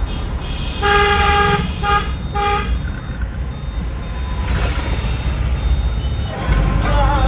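A vehicle horn honks three times, one longer blast and then two short ones, over the steady low rumble of a moving car heard from inside its cabin.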